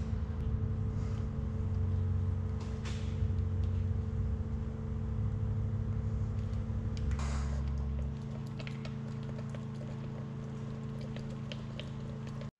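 Steady machine hum with a low rumble that drops away about eight seconds in. Under it, light scraping and clicking of a wooden stir stick in a plastic tub as resin is mixed, with a short clatter a little past halfway.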